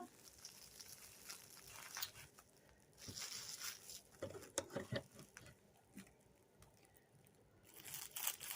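Faint handling noises: soft rustling and a few light clicks and taps as items are moved about and unpacked.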